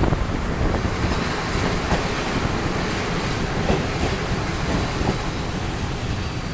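Passenger train coaches rolling into a station: a steady rumble of wheels on the rails with a few light clacks over rail joints, easing slightly toward the end.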